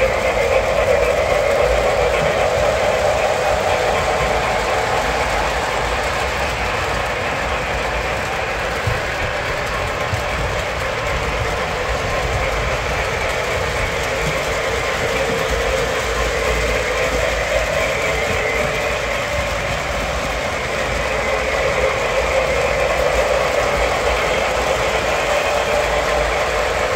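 MTH O gauge model trains running on three-rail track: a steady running noise of motors and wheels on the rails. It is a little louder in the first few seconds and again for a few seconds about three quarters of the way through.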